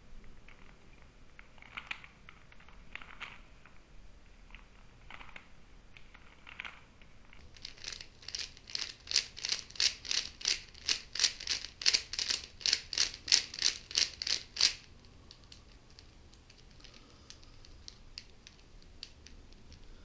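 Plastic 3x3 Rubik's Cube faces being turned by the fingers. A few faint clicks at first, then a fast run of loud, even clacks, about three a second for some seven seconds, as the R' F R F' sequence is repeated. After that the clicks go faint again.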